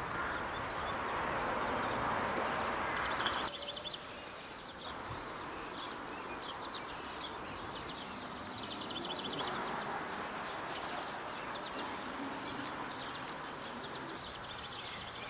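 Small birds chirping in short, rapid trills that recur over and over, over a steady outdoor hiss. The hiss drops suddenly about three and a half seconds in.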